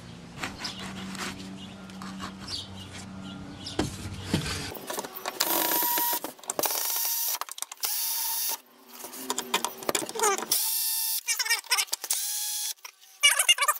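Cordless drill backing screws out of a metal piano hinge, running in three stretches of one to two seconds with a steady whine, from about five seconds in, then a few short spurts near the end. Before the drill starts there are a few light clicks and knocks.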